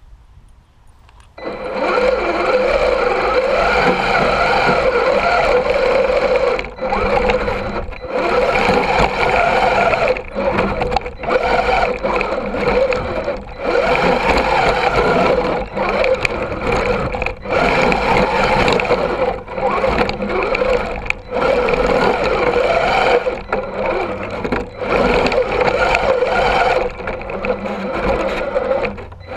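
Axial SCX10 II RC crawler's electric motor and geared drivetrain whining as the truck drives through snow, heard from a camera mounted on the truck. It starts about a second and a half in and cuts out briefly about a dozen times as the throttle is let off and reapplied.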